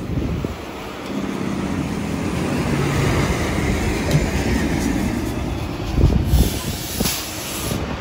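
Diesel transit bus engine running and pulling away, growing louder over the first few seconds, with a few low thumps about six seconds in.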